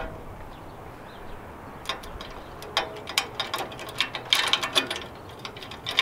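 Sharp metal clicks and rattles in a few short clusters from a Green Touch trimmer rack's locking handle being turned and its padlock handled. The handle still turns to unlock with a No. 3 Master padlock fitted, because part of that lock is too long to hold the rack locked.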